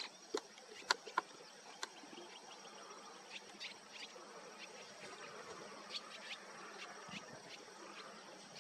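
Faint outdoor bush ambience: scattered short, high chirps and ticks over a soft steady hiss, with a few sharper clicks in the first two seconds.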